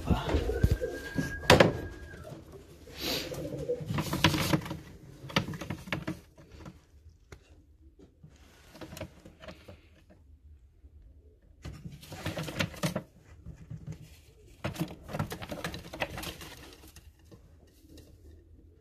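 Baku fighting pigeons cooing, with knocks, clicks and rustling among the calls; a sharp knock about a second and a half in is the loudest. Quiet for a few seconds in the middle.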